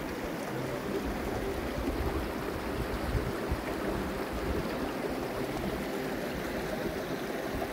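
Shallow mountain stream rushing over rocks, a steady rush of water.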